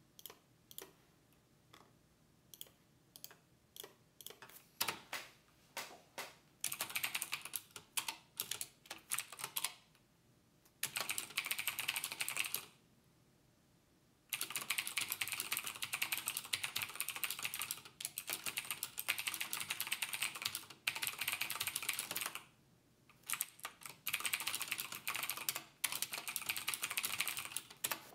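Typing on a computer keyboard: a few scattered keystrokes at first, then quick runs of keystrokes lasting a few seconds each, with short pauses between them.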